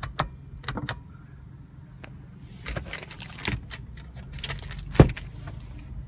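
Sharp plastic clicks of the overhead cabin-lamp switch being pressed, four of them near the start. Then rustling and clacking as the plastic-wrapped sun visor is handled, with one loud clack about five seconds in, all over a steady low hum.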